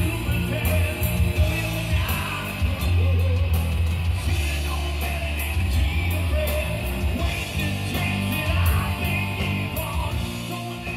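Live rock band playing: a singer belting into a microphone over electric guitar, bass guitar and drums, with strong bass and steady cymbal hits.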